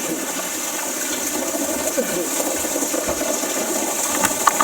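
Steady rush of river whitewater. A few sharp knocks come near the end.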